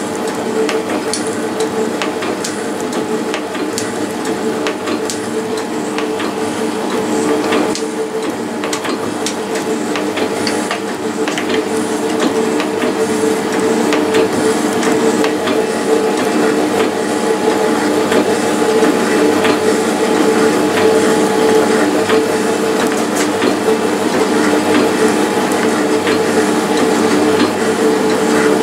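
Metal shaper running and cutting a metal plate held in a vise: a steady machine hum with repeated clicks and clatter from the ram's back-and-forth stroke, growing a little louder after about twelve seconds.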